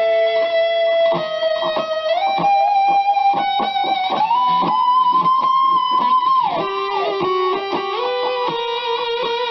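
BC Rich Mockingbird electric guitar on its front (neck) pickup with the treble rolled off, giving a smooth tone. It plays long sustained lead notes that slide up and down between pitches, under a run of quick picked notes.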